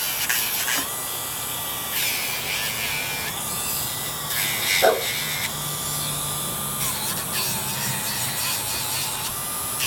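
Dremel rotary tool grinding down a dog's nails, a steady high whine whose pitch dips briefly several times. A short squeak about halfway through.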